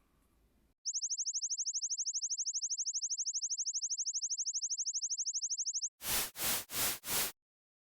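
High-pitched synthetic test signal played by the LiveProof liveness-detection app for its movement-based check with audible sound: a rapid run of identical rising chirps, about ten a second, for some five seconds. Then four short bursts of hiss, and it cuts off.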